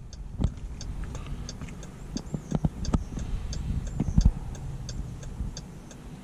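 Hazard-light flasher ticking steadily in a 2018 Jeep Grand Cherokee, about two to three ticks a second. A few dull knocks of handling inside the cabin come through it.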